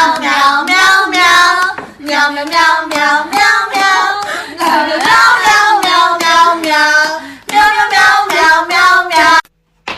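A high voice singing a tune in short phrases, stopping near the end.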